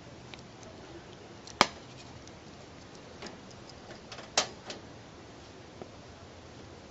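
Sharp metal clicks from the steel parts of a Mauser C96 locking frame being worked by hand as the coupling is removed. One loud click comes about a second and a half in, then a few smaller clicks, and a cluster with another loud one around four to five seconds in.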